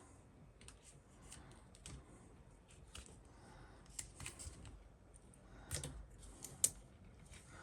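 Faint rustling and scattered small clicks of hands handling electrical tape and a loose metal shield, with a couple of sharper clicks about six seconds in.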